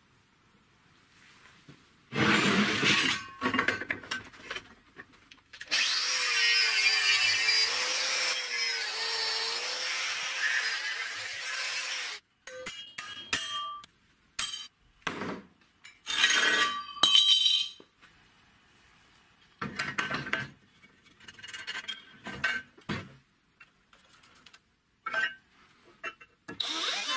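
Metalworking on rectangular steel tube clamped in a bench vise. After a quiet start come loud rasping strokes, then about six seconds of continuous power-tool cutting with a wavering tone. The rest is short bursts of drilling and handling knocks.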